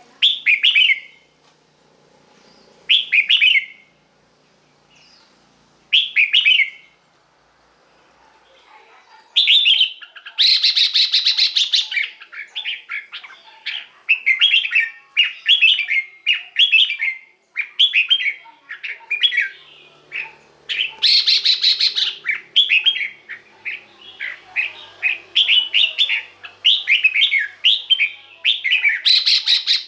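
Red-whiskered bulbul singing short, bright whistled phrases: three spaced about three seconds apart, then from about ten seconds a quick run of phrases. Two louder, harsh stretches come in the middle and one near the end.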